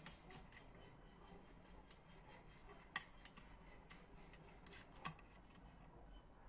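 Faint, scattered light clicks and taps of small parts being handled on a workbench, with two sharper clicks about three and five seconds in.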